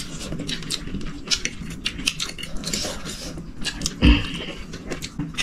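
Cutlery and dishes clinking and tapping in a run of small, irregular clicks, with one heavier knock about four seconds in.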